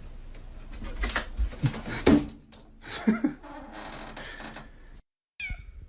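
A domestic cat meowing, a short call falling in pitch near the end, after a few sharp knocks and rustling.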